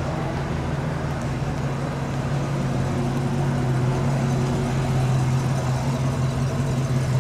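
1971 Ford Torino's engine idling steadily as the car rolls slowly past, getting a little louder toward the end.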